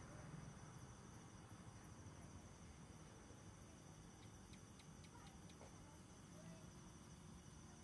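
Faint, steady high trilling of night insects such as crickets, a pulsing tone that keeps on without a break, over a low rumble.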